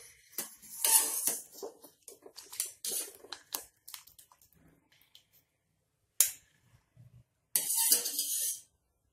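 Wire spider strainer clinking and scraping against a steel pot as par-boiled potato cubes are scooped out of the water and tipped into a glass bowl. A run of sharp clinks comes first, then a pause, then a longer scrape near the end.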